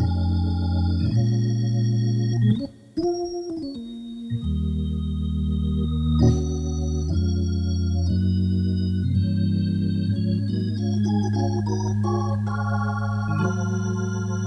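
Instrumental music of long held keyboard chords that change every second or two, with a short drop-out about three seconds in.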